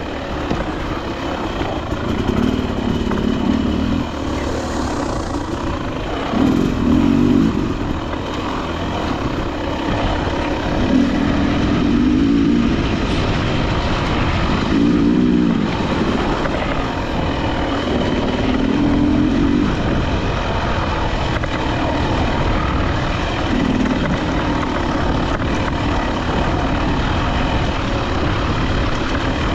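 Enduro dirt bike engine running under way, its revs rising and falling every few seconds as the bike is ridden along a trail.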